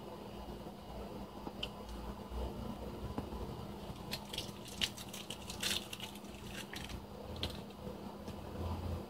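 A person chewing mouthfuls of Milky Way bar fast, with wet mouth smacks and clicks bunched together from about four to seven seconds in.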